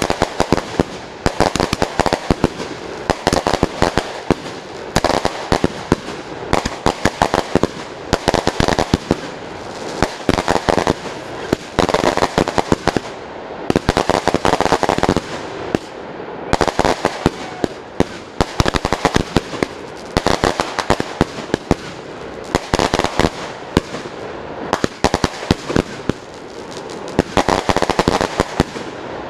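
Fireworks show firing without a break: a dense stream of sharp bangs and crackles that swells in waves every second or two.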